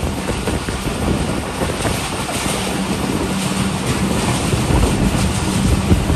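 Passenger train running steadily at speed, heard from on board: a continuous rumble of wheels on track with a steady low hum, and wind rushing over the microphone.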